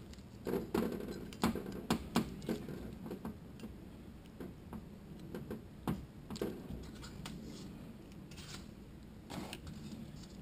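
Irregular sharp clicks and taps of metal automatic-transmission parts, the forward clutch drum and its shaft, being handled and set down on a metal workbench, with a few soft rustles. The clicks are busiest in the first few seconds, then come sparser.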